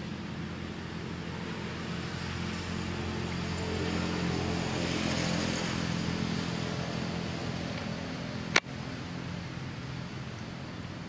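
A steady low engine hum, like a motor vehicle running, that swells about halfway through and then eases off. A single sharp click comes near the end.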